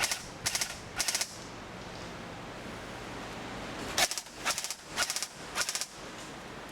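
Airsoft gun firing short rapid bursts: three in quick succession, a pause of about three seconds, then four more.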